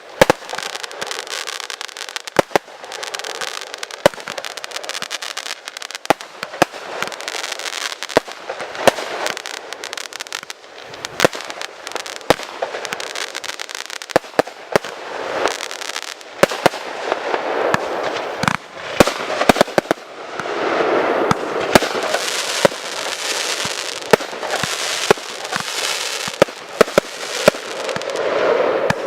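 Fireworks display: many sharp bangs of bursting shells over a steady crackling hiss. It grows denser and louder about two-thirds of the way through.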